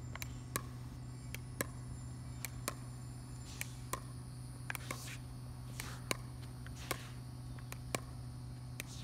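Pickleball dinking rally: a hard plastic ball tapped softly off paddles and bouncing on the court, giving sharp clicks about two a second, often in close pairs.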